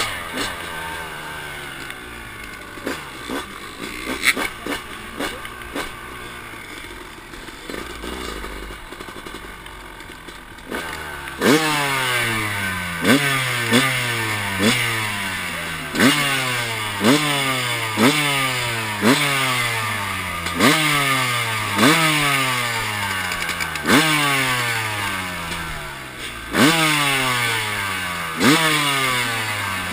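Dirt bike engine heard close up from on the bike. For the first ten seconds or so it runs quietly at low revs with scattered clicks. Then the throttle is blipped hard again and again, about every second or two, and each time the revs jump and fall away.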